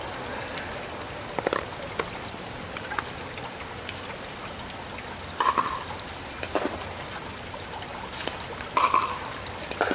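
Plastic pickleball bounced a few times on a wet court before the serve, then sharp paddle hits with a short ring about five and a half and nine seconds in. Under it all is a steady wash of light rain.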